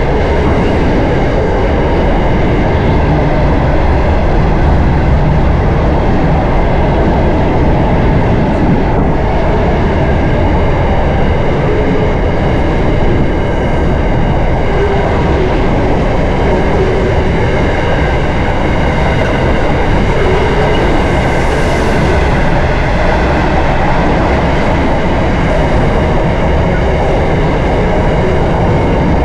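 Freight train cars rolling past at close range: a loud, steady rumble and rattle of steel wheels on the rails that does not let up.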